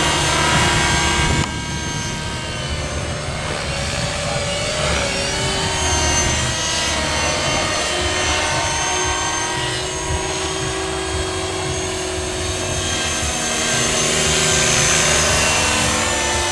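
Align T-Rex 500 electric RC helicopter flying overhead: a high whine of motor and rotors made of several pitches that slowly rise and fall as it manoeuvres. The loudness drops suddenly a little over a second in.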